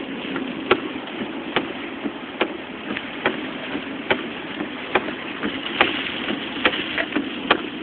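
Steady rain and road noise inside a moving car in a hurricane downpour, with a sharp click repeating evenly a little faster than once a second.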